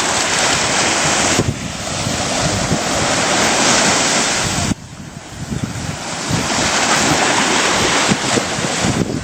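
Ocean surf washing in, with wind buffeting the microphone. The noise swells, drops off suddenly about halfway through, then builds again.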